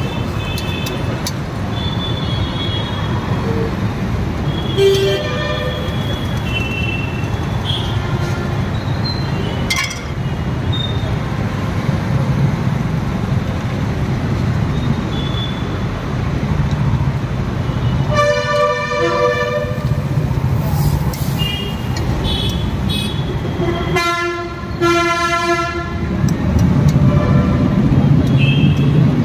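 Roadside traffic running steadily, with vehicle horns honking: several short toots, then two longer horn blasts, one about two-thirds of the way in and another a few seconds later.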